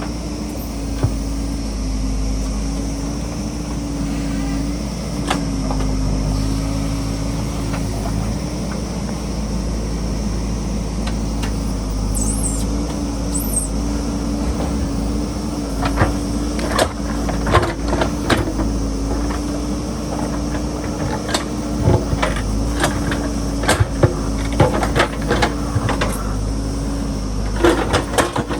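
JCB backhoe loader's diesel engine running steadily, with scattered sharp knocks and clanks that come thickest in the second half.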